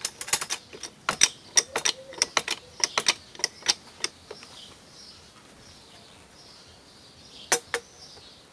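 Quick run of sharp metal clicks and knocks for about four seconds as the steel lid of a homemade briquette press built from an old ammunition box is swung open and the plastic core pipes are worked out of the pressed briquette, then two more knocks near the end. Faint birdsong behind.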